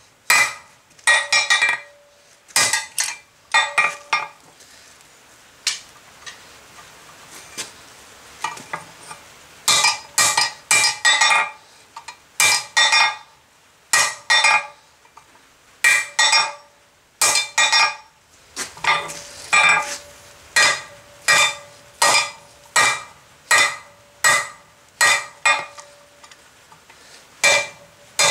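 Hand hammer striking red-hot steel bar on a hornless block anvil to draw it out, each blow sharp with a metallic ring, about two a second. After about four seconds the blows stop for several seconds, then resume.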